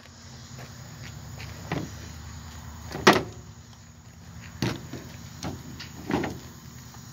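Sharp knocks and clanks, about five of them and the loudest about three seconds in, as jumper cables with metal clamps are handled and set down on a pickup truck's tailgate, over a low steady hum.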